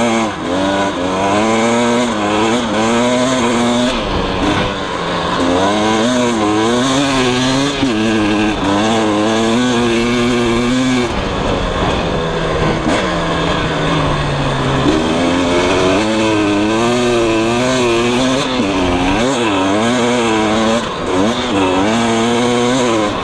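KTM 300 EXC's two-stroke single-cylinder engine being ridden hard on sand, its revs rising and falling over and over as the throttle is worked. About halfway through the revs drop away and wind down for a few seconds, then it revs up and down again.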